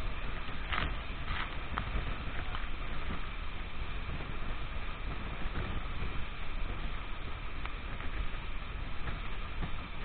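Steady roar of a tall waterfall close by, with wind and spray buffeting the phone's microphone.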